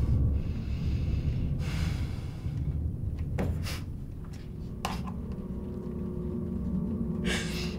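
A woman crying quietly to herself: a few sharp sniffs and gasping breaths, the longest about two seconds in and another near the end, over a low steady rumble.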